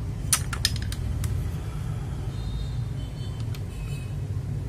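A few sharp plastic clicks from a mechanical keyboard switch and keycap being pressed and fitted, most of them in the first second and a half, over a steady low hum.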